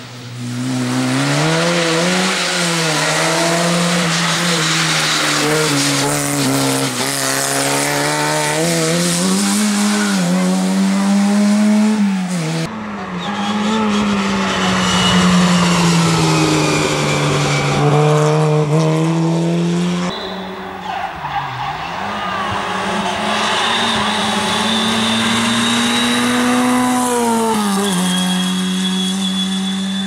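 Skoda 130 rally car's rear-mounted four-cylinder engine running hard, revs climbing and dropping again and again through the gears as the car drives the stage. The sound changes abruptly about 13 and 20 seconds in, where separate passes are cut together.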